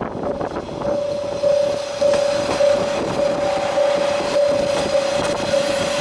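Kanto Railway KiHa 5000 diesel railcar passing close by, its wheels clacking over the rails and getting louder a second or two in. A level crossing bell rings on with a steady, repeating ding.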